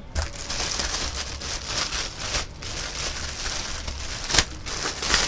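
Plastic packaging rustling and crinkling as it is handled and pulled apart while unpacking the vacuum cleaner's parts, with a couple of sharp clicks.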